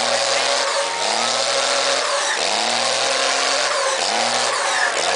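An engine revving over and over, its pitch climbing and then holding for a moment, about every second and a half, over a steady crowd din.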